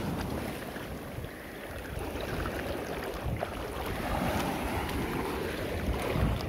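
Small waves washing in over sand at the water's edge, with wind rumbling on the phone's microphone.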